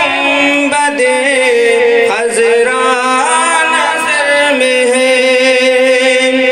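A man singing a naat, an Urdu devotional poem, solo into a microphone, drawing out long held notes with wavering ornaments.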